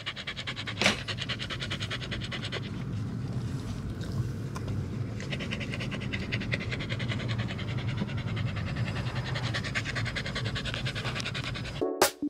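Pembroke Welsh corgi panting fast and evenly, close up, over the low steady rumble of the car it is riding in. Near the end it cuts off abruptly.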